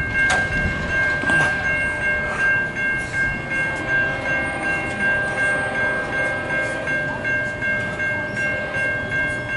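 Railroad grade-crossing warning bell ringing steadily with a pulsing beat about twice a second, with the gates down, over the low rumble of an approaching freight train.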